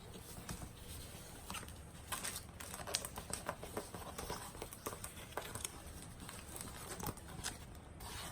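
A diamond painting canvas being handled: light rustling and crinkling with scattered small clicks.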